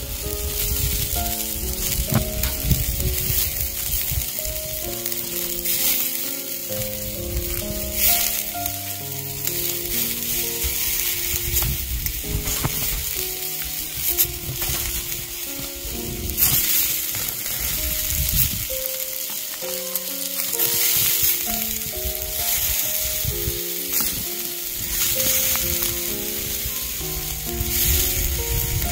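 Pork sizzling and spitting fat on a wire grill grate over hot charcoal: a steady hiss broken by scattered sharp crackles. A gentle melodic background music track plays under it.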